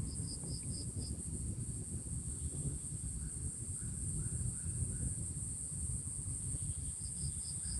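Steady high-pitched insect drone, with two short runs of quick chirps, about five a second, near the start and near the end, over a low rumble.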